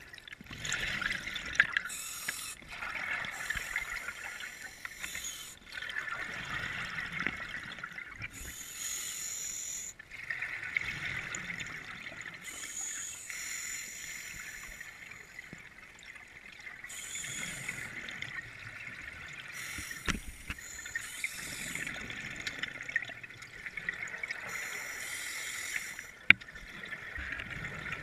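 Underwater sound of scuba divers breathing through their regulators, with a steady bubbling hiss and a rush of exhaled bubbles every few seconds.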